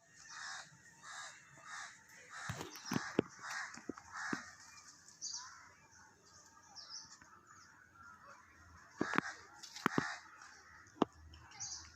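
Birds calling in a quick repeated series, about three calls a second at first, then fainter and more scattered. A few sharp clicks or knocks stand out, twice in short clusters.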